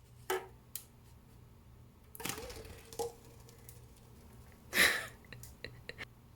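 Handling of packaged coffee bottles on a table: a few sharp clicks and knocks and two short rustling scrapes, the loudest a little before five seconds in.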